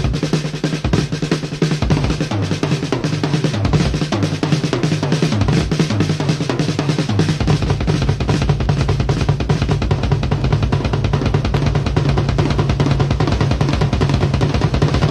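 Rock drum kit played solo, with fast snare rolls and bass drum hits. About halfway through, a steady low note comes in underneath the drumming.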